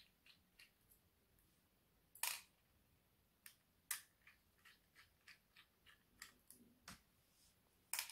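Faint, scattered small metallic clicks and ticks from a screwdriver turning out the screws that hold a laptop hard drive in its metal mounting bracket, with the loudest click about two seconds in.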